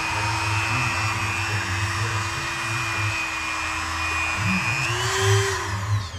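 Dremel rotary tool with a cutoff wheel running at high speed while cutting metal nut inserts off a console panel: a steady whine over a gritty grinding noise. Near the end its pitch rises as the wheel comes off the work, then the tool stops.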